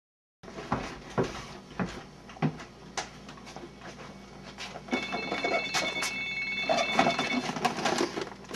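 Scattered knocks and bumps of someone moving about, then a phone rings for about two and a half seconds, starting about five seconds in: a high, steady ring.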